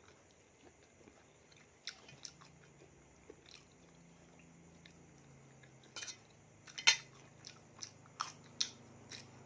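Close-up chewing and mouth sounds while eating a seafood salad: scattered short wet smacks and clicks, sparse at first and more frequent in the second half, the loudest about seven seconds in.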